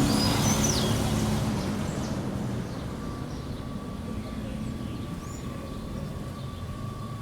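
A road vehicle's engine passing and fading away over the first few seconds, leaving quieter street ambience with a few short bird chirps. A faint steady high tone sets in about three seconds in.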